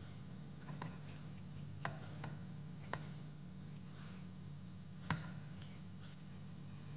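Light clicks and clinks of kitchen utensils: about six separate taps, the loudest about five seconds in, over a steady low hum.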